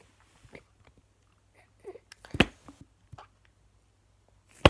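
Handling noise of a measuring cup and glue on a tabletop: scattered light clicks and knocks, with a louder thump about halfway through and another sharp knock near the end.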